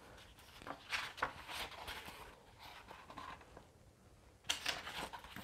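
Paper pages of a hardcover book being turned and leafed through, soft rustling with light clicks, then a louder riffle of pages near the end.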